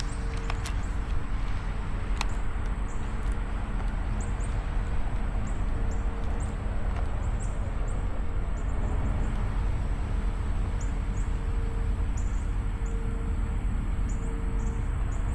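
Steady low rumble with a motor hum, one tone of it coming and going every second or two. Over it, many short high chirps from birds.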